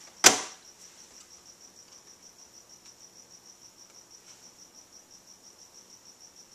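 Telephone handset set down on the desk with a single sharp clatter just after the start. Behind it, a steady high-pitched pulsed chirping, about six pulses a second, like a cricket.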